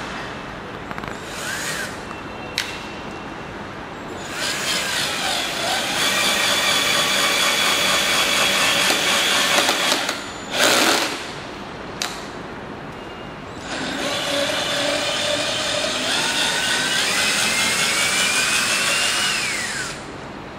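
Cordless drill driving wood screws into a timber board through a double-ended PH2 bit with a magnetic coil. The motor whines under load in two long runs, the first starting about four seconds in with a short louder burst just after it stops. The second starts near fourteen seconds, its pitch rising before it cuts off.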